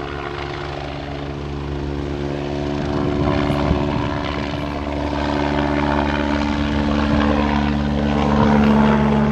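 Air ambulance helicopter flying overhead: a steady drone from its rotors and engine that grows louder over the last few seconds as the helicopter comes closer.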